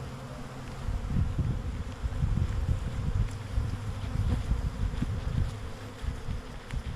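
Honey bee swarm buzzing close by, with an uneven low rumble coming in about a second in and running on.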